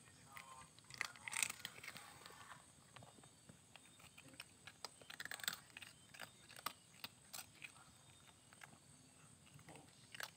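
A domestic cat crunching dry kibble: an irregular run of small, crisp crunches as it chews.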